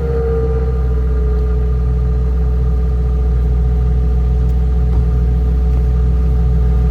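2017 Subaru WRX's turbocharged flat-four idling steadily on its stock exhaust just after a cold start; a low, even drone that is quiet and very underwhelming.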